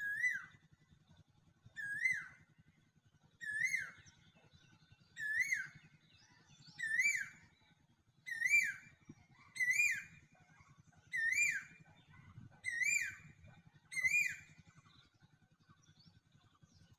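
A high whistled call, each note rising then dropping sharply, repeated ten times about every second and a half over a faint low hum.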